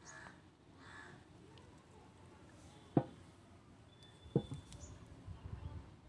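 Quiet room noise with two short sharp clicks, about a second and a half apart, the first the louder, followed by a faint low rumble.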